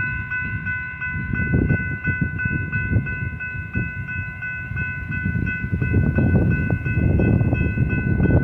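Railroad crossing warning bell ringing in a fast, even, repeating chime that keeps going while the gate arms are raised, a sign of the crossing malfunctioning. A low rumble sits underneath.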